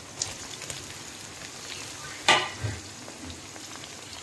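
Sliced onions tipped into hot oil in a wok, sizzling steadily with small crackles. A sharp knock about halfway through, followed by a couple of softer thuds.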